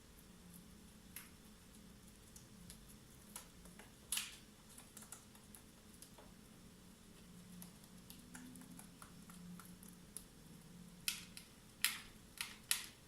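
Sharp, dry clicks and taps from pet cockatiels pecking, scattered at first, with a quick run of four or five near the end, over a faint steady hum.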